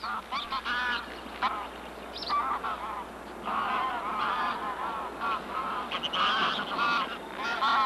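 A flock of wild geese honking, with many calls overlapping one another.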